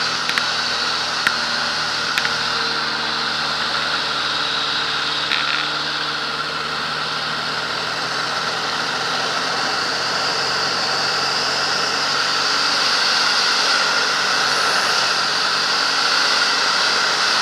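Light aerobatic biplane in flight, recorded from the cockpit: a steady mix of piston engine and propeller hum with rushing airflow, growing slightly louder over the second half.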